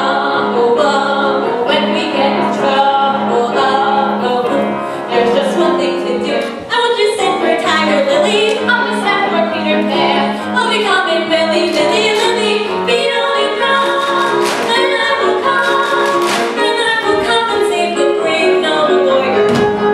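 Stage musical number: a cast singing together, with soloists and the ensemble over accompaniment with a steady held low note.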